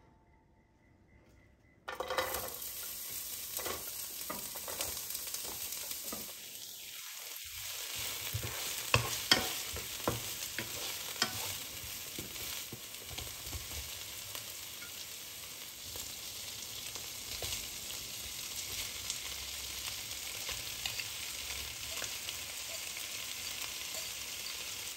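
Food sizzling as it fries in a pan, starting suddenly about two seconds in. A spatula scrapes and taps against the pan as the food is stirred, with a few louder knocks.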